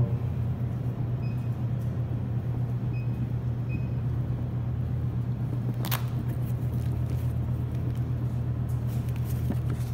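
Steady low hum at an even level, with a single sharp click about six seconds in.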